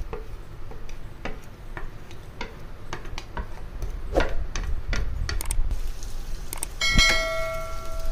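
Chopped onions being pushed off a plate with a wooden spatula into oil in a pan: irregular clicks and crackles, then a sharp clink that rings on for about a second near the end.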